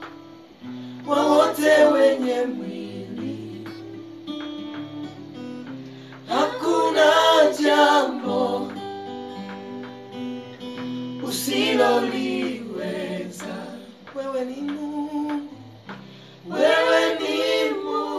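Acoustic guitar accompanying a small group of male and female voices singing a Swahili gospel song: four sung phrases of about two seconds each, with the guitar carrying on alone between them.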